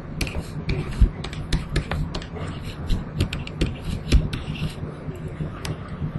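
Irregular light clicks and taps of a stylus on a pen tablet as annotations are written, several a second, over a steady low electrical hum.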